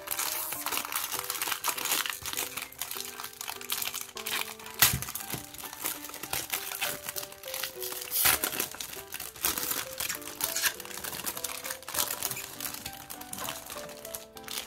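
Clear plastic wrapping crinkling and crackling as hands peel it off a stack of photo prints, with two louder crackles about five and eight seconds in. A background music melody plays underneath.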